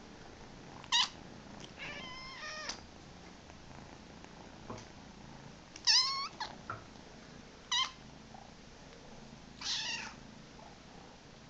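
Kittens giving short, high-pitched meows, the little chirping "meeps" of contented kittens. There are about six calls, one a quick run of chirps about two seconds in and the loudest about six seconds in.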